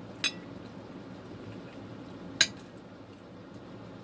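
Two sharp clinks of an eating utensil against a dish, about two seconds apart, the second louder, over a low steady background noise.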